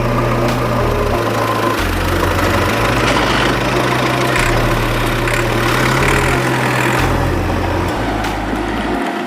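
A motor engine running steadily, its low hum shifting in pitch every second or so.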